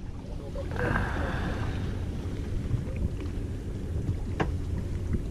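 Steady low rumble aboard a small fishing boat on open water, with a short hiss about a second in and a single sharp click near the end.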